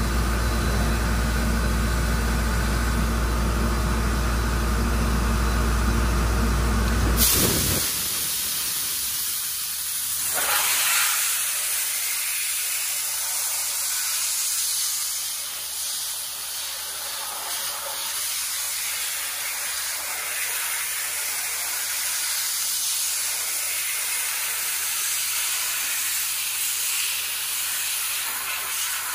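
A steady low machine rumble with a hum cuts off abruptly about seven seconds in. It gives way to the loud, steady hiss of a dry ice (CO2) blasting gun spraying against a vehicle's undercarriage.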